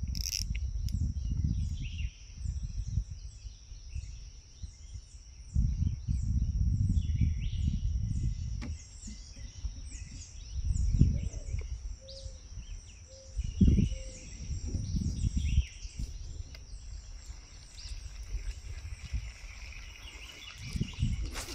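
Riverside ambience: many birds chirping over a steady, high insect drone. Irregular spells of low rumbling noise on the microphone, several seconds at a time, are the loudest sound.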